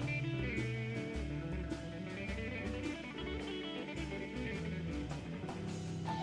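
Background music led by guitar, with a steady beat and bass line.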